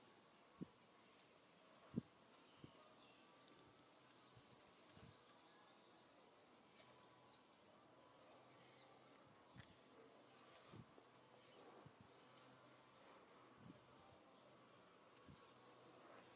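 Near silence: faint outdoor ambience with many short, high-pitched chirps scattered throughout and a few soft low thumps, one louder thump about two seconds in.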